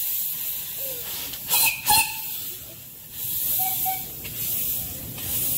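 Steam hissing from the open cylinder drain cocks of the 10¼-inch gauge steam locomotive Agapanthus in long bursts with short gaps, as condensed water is blown out of the cylinders while it moves off. Two sharp, loud blasts come close together about a second and a half in.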